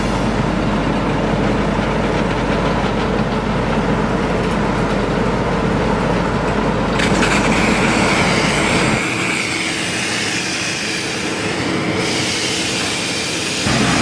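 Asphalt paver running: a steady engine drone with mechanical rattle and clatter. About seven seconds in, the sound changes abruptly to a lighter mix with a high hiss, and the deep rumble drops out soon after.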